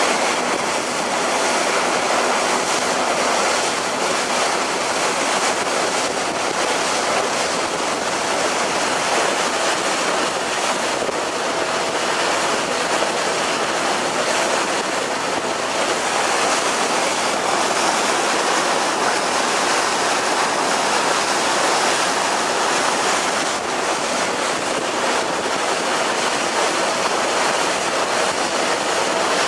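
Steady rush of water and wind from a passenger ferry under way across choppy water, an even noise that does not let up.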